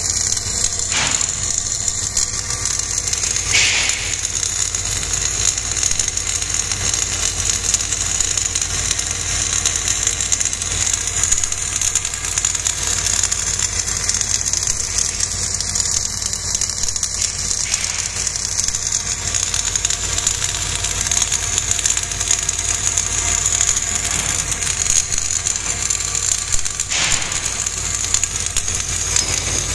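Welding arc from a travelling welding carriage laying a fillet weld, with a steady, unbroken crackle and hiss and a few brief clicks.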